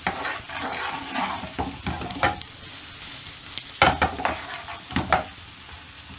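Finely diced onion frying in hot olive oil, sizzling steadily, while a utensil stirs and scrapes through the pan in irregular strokes, the loudest about four and five seconds in. The onions are being softened as the start of a curry sauce.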